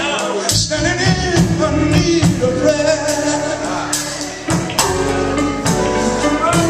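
Live gospel quartet music: male voices singing over a band of electric guitar, drum kit and keyboard, with steady drum hits.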